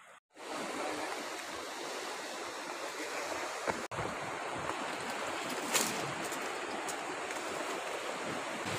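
Surf washing on the shore, a steady hiss of breaking waves, with a few short knocks and rustles. The sound drops out briefly twice, just after the start and just before the 4-second mark.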